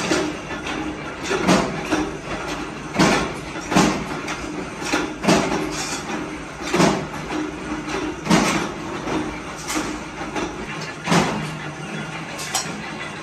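Scrap steel compressor shell halves clanking against one another as they are sorted by hand, with a sharp metallic clank about once a second and a brief ring after each.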